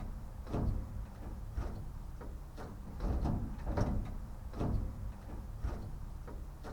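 Repeated creaks and scrapes, roughly one or two a second, over a low rumble, as the large side window of a 1972 Chevy G20 van and its screws are worked loose.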